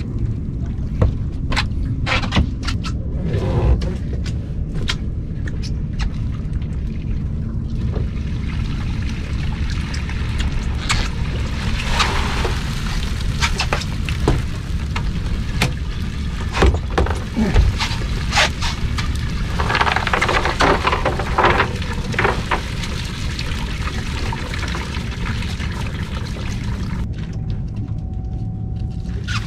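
Cast net hauled in and emptied onto a fiberglass boat deck: water pouring and dripping off the net, scattered knocks and clicks, and baitfish flapping on the deck, over a steady low rumble.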